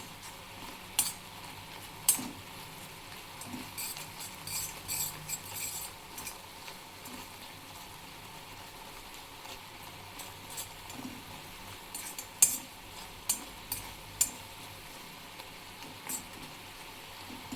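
A spoon stirring a thick jaggery and ginger mixture in a pan on the gas, with a faint steady sizzle as it cooks down to drive off its water. There are sharp scrapes of the spoon against the pan now and then, several together about four to five seconds in.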